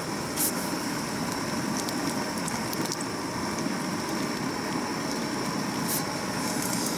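Broth boiling in a pot on a canister gas stove: a steady, dense bubbling crackle over the burner's hiss, with two brief sharp hisses, one about half a second in and one near the end.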